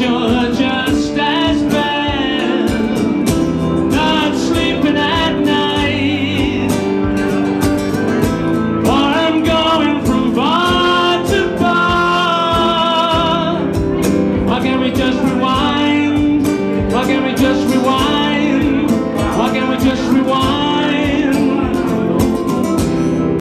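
A man singing live to a nylon-string electro-acoustic guitar, with a wooden stomp box knocking out the beat; no backing track. The music cuts off suddenly at the end.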